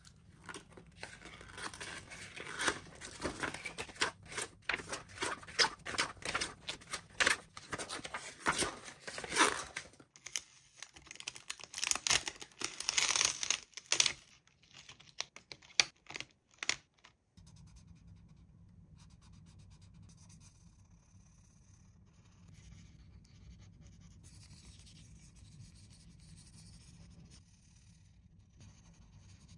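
Packaging being torn open and handled: irregular bursts of tearing, crinkling and scratching for about the first seventeen seconds, then only faint rubbing and scratching.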